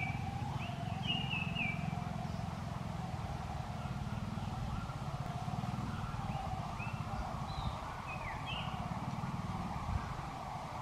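Outdoor forest ambience: a steady low rumble and a wavering mid-pitched hum, with short high chirps in small clusters about a second in and again around seven to eight seconds in.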